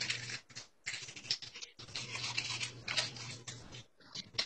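Scratchy rubbing and light taps of a hand and marker on a small whiteboard, in short irregular strokes.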